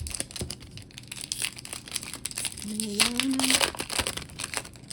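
A foil trading-card booster pack wrapper crinkling as it is handled and opened, in a dense run of crackles. A short voiced hum sounds about three seconds in.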